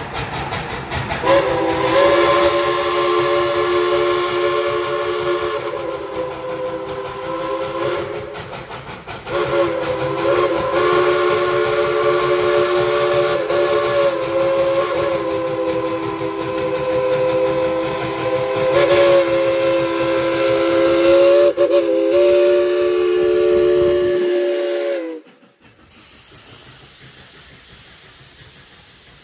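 Steam locomotive's chime whistle sounding a chord of several tones: a long blast, a brief break, then an even longer blast with slight wavers in pitch. Steam hiss runs beneath, and the sound cuts off suddenly near the end.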